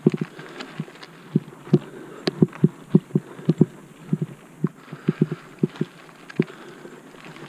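Mountain bike rolling down a rocky, loose-gravel trail: irregular sharp knocks and rattles, several a second, as the tyres hit stones, over a faint crunch of tyres on gravel.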